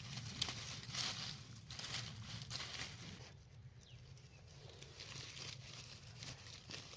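Dry leaves and undergrowth rustling and crackling in irregular strokes, busiest for the first three seconds, then thinning to faint rustles.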